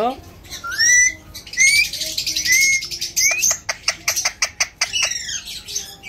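Alexandrine parakeet calling: a string of short, up-sweeping whistled chirps about once a second, then a rapid run of clicks for about a second and a half, ending in a couple of falling notes.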